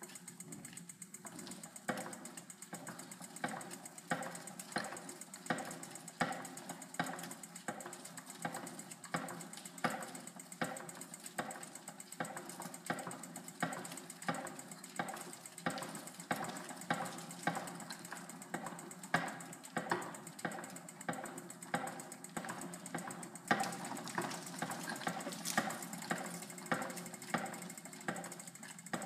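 Bicycle wheel spinning in a rig, with a steady mechanical hum and a regular click about twice a second.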